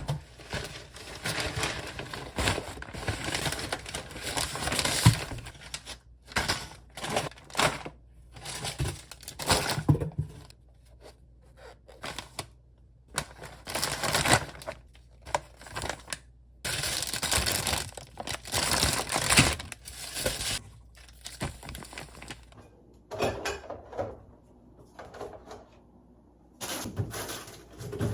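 Irregular crinkling and rustling of paper or plastic being handled, with a few light knocks and thuds in between.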